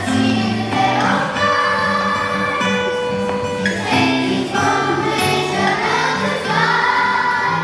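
A song: several voices singing together over an accompaniment with a stepping bass line, with no pause.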